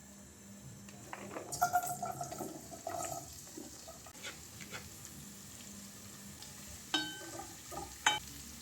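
Household handling sounds, like utensils and dishes in a kitchen: scattered light clicks and knocks, with short ringing clinks about a second and a half in and again near seven and eight seconds.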